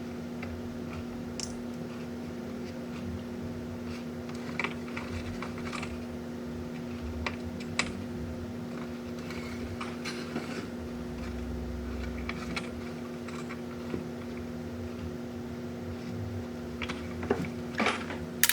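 Scattered light clicks and taps of small parts being handled, with a sharper cluster near the end, over a steady low hum.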